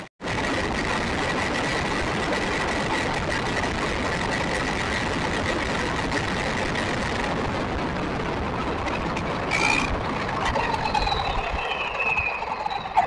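RC buggy running on rough asphalt, heard from its onboard camera: tyre and wind noise with a steady high motor-and-gear whine. Near the end the whine splits into several tones that fall in pitch as the buggy eases off, and the sound grows rougher.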